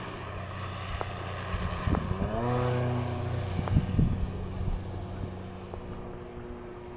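Electric RC plane's brushless motor (SK3 5055 430kv) and 17x8 propeller whining in flight on a low pass, the pitch rising about two seconds in and loudest around the middle. A few sharp knocks just after the middle.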